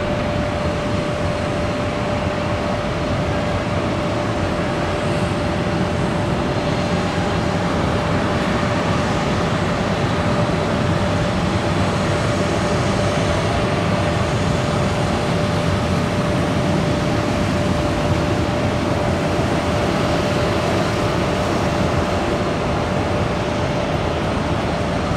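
Steady running noise of a jet airliner on the wet apron, with a constant thin whine held throughout, over the hiss of rain.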